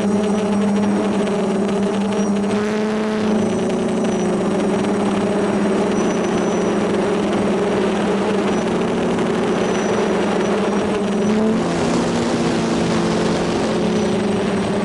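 F450 quadcopter's brushless electric motors and propellers humming steadily, picked up close by the camera on board, a chord of several pitches that shifts slightly as the throttle changes about eleven seconds in. A rush of air noise rises twice, near the start and again toward the end.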